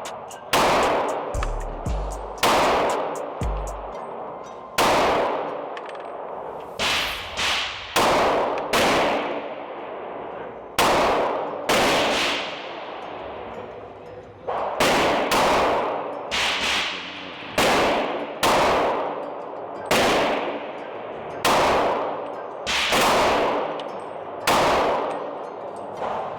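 Glock 23 pistol in .40 S&W fired in slow, single shots, about eighteen in all, roughly one every second or so with a few quick doubles; each shot is sharp with a long ringing tail.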